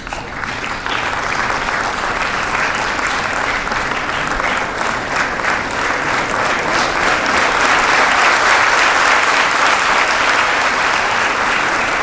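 Audience applauding, starting suddenly and swelling a little louder later on.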